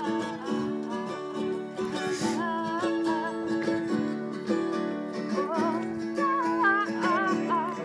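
Acoustic guitar played with a woman singing a slow melody over it in held, wavering notes. The voice comes in phrases, with the guitar carrying on alone between them.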